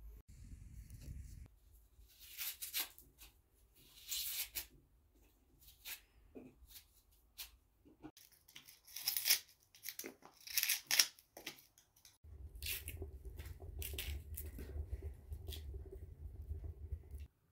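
Dry onion skin being peeled and torn off with a small knife: a run of short, scratchy rasps. About twelve seconds in, this gives way to the steady low rumble of a wood stove's fire, which cuts off suddenly near the end.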